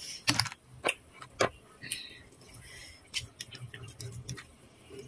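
Fork and spoon clicking against a bowl as noodles are mixed: a few sharp clicks in the first second and a half, then a run of lighter clicks.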